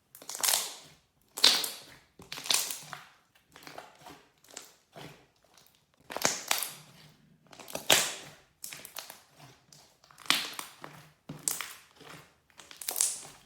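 Slime being squeezed and pressed by hand: a run of irregular noisy squishes, roughly one a second.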